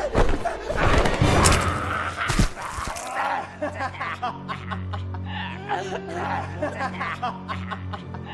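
Film soundtrack of a fight: loud thuds and rushing impacts for the first three seconds. Then a low, steady music drone under a person's soft, rhythmic chuckling laughter.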